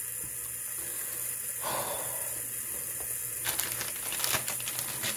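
A soft plastic packet being handled, crinkling and clicking in quick irregular bursts from about three and a half seconds in, over a steady hiss.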